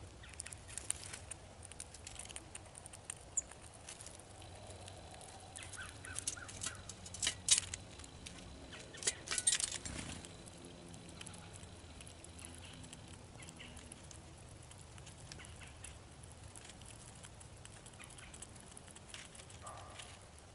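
Gray squirrel chewing and cracking seeds close to the microphone: irregular small crunches and clicks, busiest and loudest between about six and ten seconds in.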